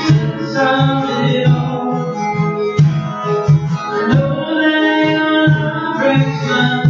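Live acoustic worship music: acoustic guitar strummed over a steady beat on a pair of conga drums.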